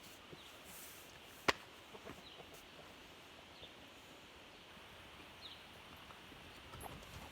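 Chickens pecking at scattered food on the ground: a patter of soft ticks with faint short chirps, and one sharp click about one and a half seconds in.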